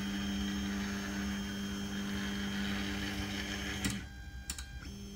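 Delta 3D printer's stepper motors, run by non-silent stepper drivers, moving the carriages with a steady pitched hum and whine that stops abruptly about four seconds in. A few faint clicks follow.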